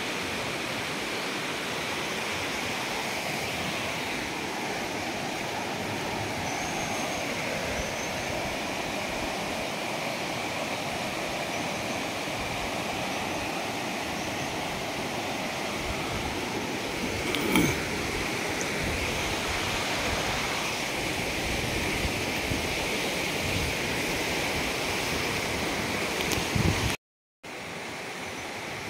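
A river rushing over stones and shallow rapids: a steady rush of running water. A single short knock comes about two-thirds of the way through, and the sound cuts out for a moment near the end.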